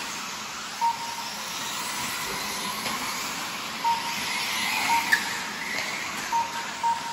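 4WD RC buggies racing, giving a steady hiss of motors and tyres. Five short beeps at one pitch spread through it: the lap-timing system marking cars as they cross the timing loop.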